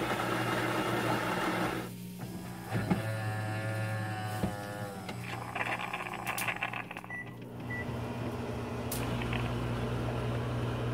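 Siemens EQ.9 fully automatic espresso machine's built-in grinder grinding coffee beans, cutting off about two seconds in. The machine's motors then hum and whirr with clicks and a couple of short high tones as it moves on to brewing, ending in a steady low hum.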